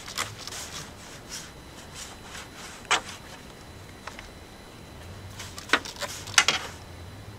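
Short rubbing and scuffing strokes of a rag wiping down a boat hull with alcohol before vinyl decals go on. A sharp knock comes about three seconds in and two more near the end, the last the loudest.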